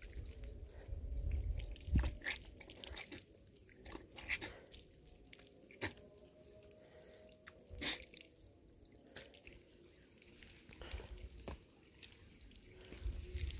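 Water from an outdoor standpipe tap dripping and splashing as hands, arms and face are washed under it, in scattered irregular splashes and drips.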